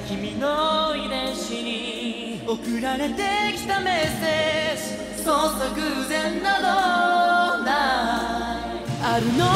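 Male J-pop vocal group singing a melodic passage of a pop song over sparse backing, with the bass and beat held back; the full low end comes back in at the very end.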